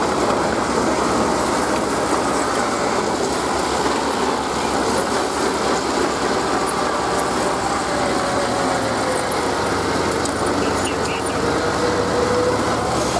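Small crawler bulldozer's diesel engine running steadily under load as it pushes dirt.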